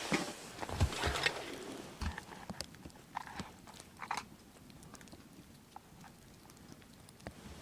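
Irregular knocks, crunches and clicks, busiest in the first two seconds with a couple of dull thuds, then scattered light ticks.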